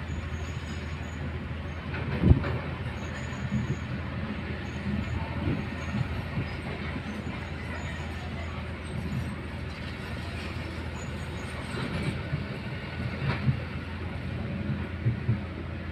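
Diesel engines of excavators and a dump truck running steadily at an earthmoving site, with scattered metallic clanks and knocks. The sharpest and loudest knock comes about two seconds in.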